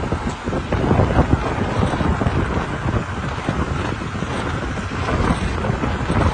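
Wind rushing over the microphone of a camera carried by a cyclist riding at speed: a steady loud rush with uneven gusts.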